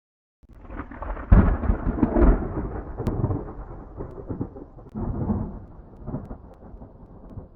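Thunder: a rumble rises out of silence and breaks into a loud crack about a second in, then rolls on. It swells again around five seconds in before fading away.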